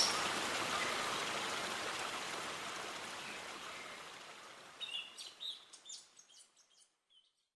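A steady background hiss fades gradually away. A short run of quick, high bird chirps comes about five seconds in, and the sound drops to silence near the end.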